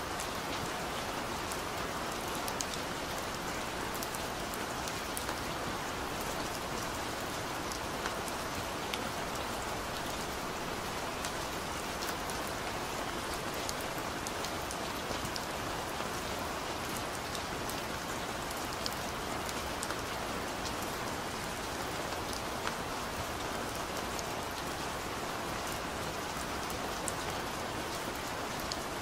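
Steady rain falling without a break, with scattered sharper drop taps through the hiss.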